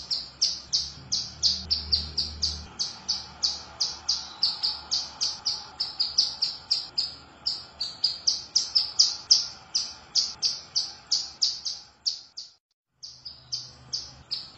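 Female ciblek gunung (mountain prinia) calling to a male: a fast, even run of short high chirps, about three to four a second, with a brief break near the end.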